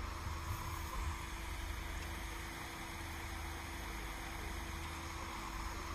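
Distant construction machinery running steadily, a constant low engine hum, with wind rumbling on the microphone.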